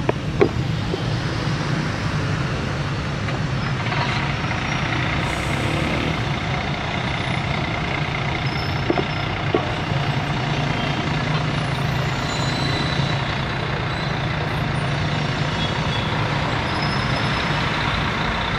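Busy city street traffic: the steady hum of vehicle engines, buses and trucks among them, running and passing, with a few short sharp clicks.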